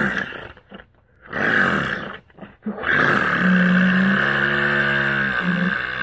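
Mouth-made imitation of a chainsaw, voiced into a cupped hand: two short buzzing bursts, then from about three seconds in a long, steady buzz.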